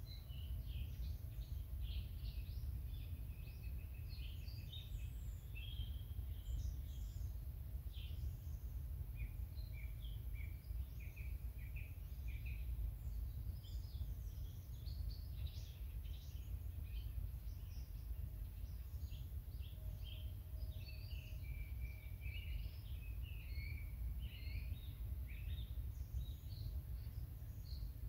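Small songbirds singing and calling, a busy mix of short chirps, twitters and trills from several birds, over a steady low rumble.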